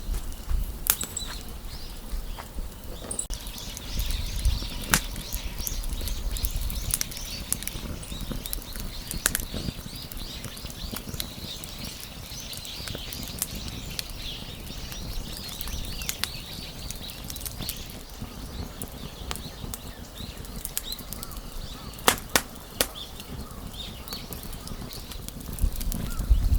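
Wood fire crackling, with irregular sharp pops over a soft hiss and a low rumble; a few louder pops come near the end.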